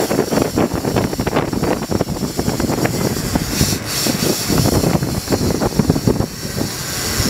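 Wind buffeting the microphone in irregular gusts aboard a moving boat, over the low rumble of the boat's engine and the water.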